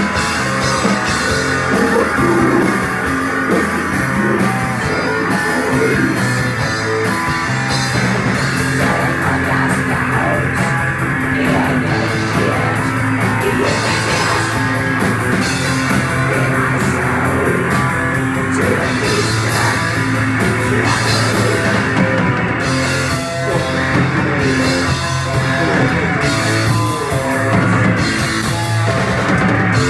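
Live doom metal band playing: distorted electric guitars over drums with cymbals.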